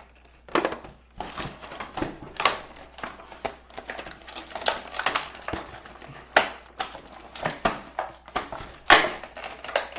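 Plastic and cardboard toy packaging being pulled and twisted by hand as a toy part is forced out of its box: irregular clicks, snaps and crackles with rustling between them.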